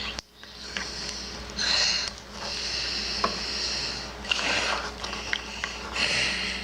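Slime being stirred and mixed as liquid starch binds it, giving sticky, wet, hissing strokes that each last a second or two, with a few sharp clicks between them.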